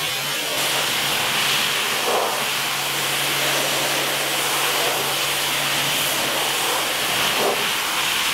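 Pressure washer jet hissing steadily as it sprays water onto a fiberglass boat seat, rinsing off grime, with the washer's pump motor humming steadily beneath.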